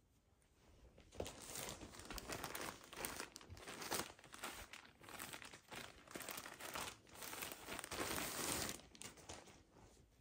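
Frosted plastic clothing packaging bags crinkling and crackling as they are handled and pulled open, in irregular bursts starting about a second in.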